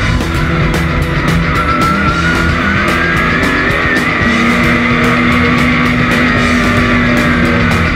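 Background music with a steady drum beat, mixed with a race car's engine running; a long held note comes in about halfway through.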